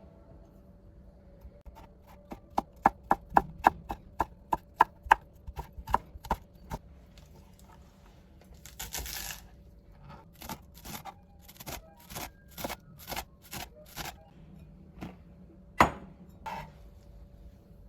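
Kitchen knife chopping on a cutting board: a fast run of about three to four strokes a second, a short scrape about nine seconds in, then slower chops about two a second and one loud knock near the end.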